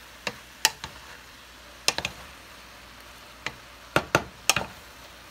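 Spatula knocking against the side of a stainless-steel pot while stirring vegetables: about ten sharp clacks at irregular intervals.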